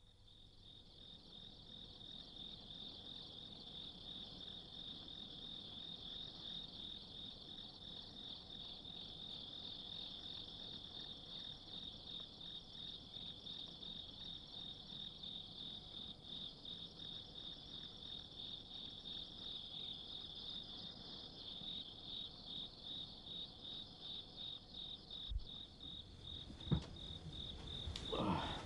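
Crickets chirring steadily as a night ambience: a fast, pulsing high trill that fades in at the start. A couple of short, faint knocks come near the end.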